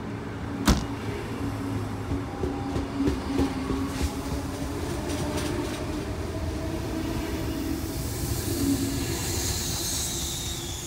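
Sydney Trains double-deck electric train running past a platform, wheels clicking over the rail joints with a steady rumble. There is one sharp clack about a second in, and a high whine falling in pitch near the end.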